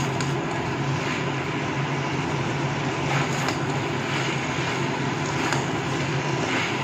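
Spiced cauliflower and potato curry sizzling in a kadai over a gas flame on medium-to-high heat, over a constant low hum, with a spatula scraping through the pan a few times.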